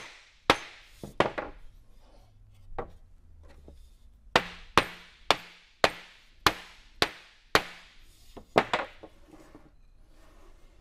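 Small mallet knocking wooden chair slats, driving their friction-fit joints home into the frame. The sharp knocks come in a steady run of about two a second through the middle, with a few scattered taps before and after.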